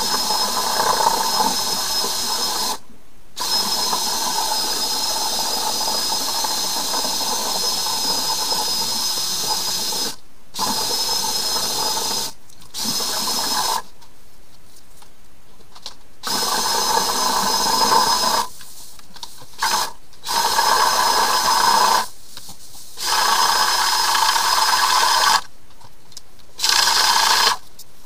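Motor of a flexible-shaft drain cleaning machine whirring with a high whine as it spins its cable inside a blocked kitchen sink drain pipe. It runs in repeated bursts of a second to several seconds, stopping briefly between each.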